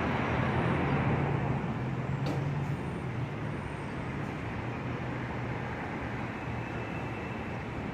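Subway train running on an elevated track, loudest in the first couple of seconds and then settling into a steadier, quieter rumble with a low hum.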